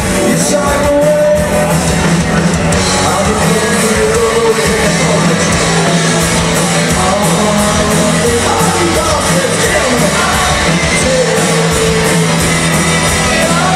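Live rock covers band playing loudly, with a voice singing over the band.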